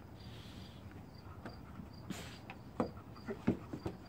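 Saint Bernard puppy and Labrador wrestling on a wooden deck: scuffling with several sharp knocks of paws and bodies on the boards, loudest in the second half. Crickets chirp steadily in the background.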